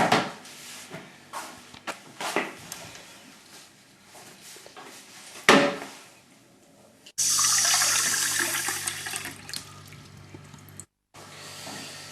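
A few sharp knocks and thumps, then a toilet flushing: a sudden rush of water about seven seconds in that slowly dies away, cut off abruptly near the end.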